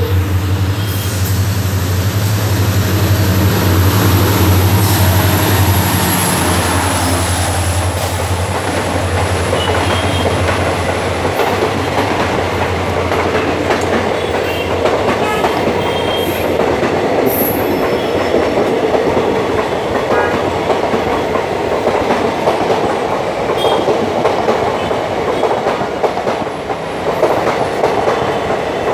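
A WDP4B diesel locomotive passing at speed, its engine droning loudly for the first fifteen seconds while a high whine falls in pitch. The express's coaches then rush past with a steady clatter of wheels over the rail joints and a few sharp clicks.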